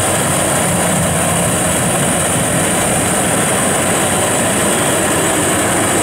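WD102Pro combine harvester working under load as it cuts and threshes standing rice, its Mitsubishi 4G33 engine and threshing gear making a loud, steady mechanical drone with a constant high hiss over it.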